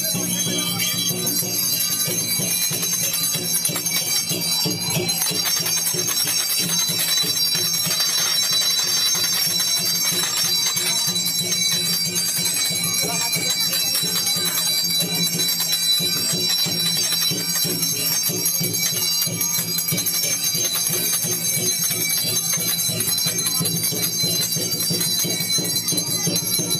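Continuous, rapid bell ringing over dense, unbroken ritual percussion: the music that accompanies a tatung spirit medium in procession.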